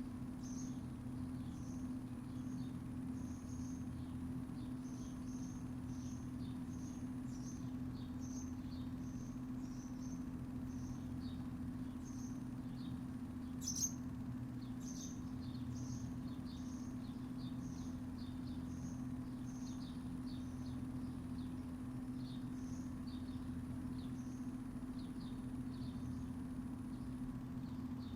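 Birds chirping, with many short high chirps repeating a few times a second over a steady low hum. A single sharp click comes about halfway through.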